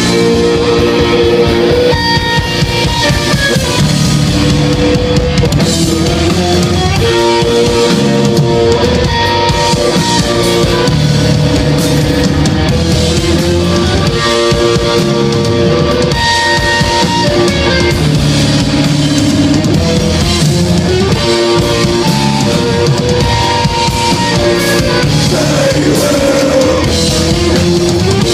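Metal band playing live: distorted electric guitar, bass guitar and drum kit.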